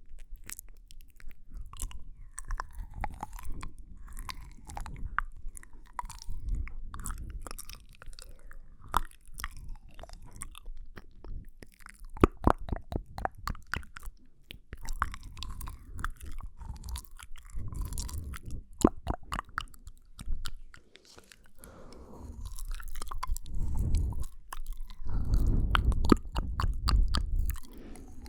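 Close-miked ASMR mouth sounds: many irregular, sharp wet clicks and smacks of tongue and lips.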